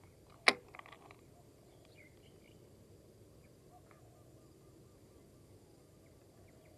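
A sharp click about half a second in, followed by a few softer clicks, as a baitcasting reel is handled; after it, faint bird and insect calls.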